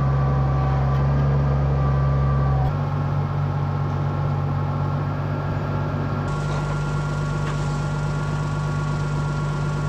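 Farm tractor engine running steadily at low speed. Its sound changes abruptly about three seconds in and again a little past six.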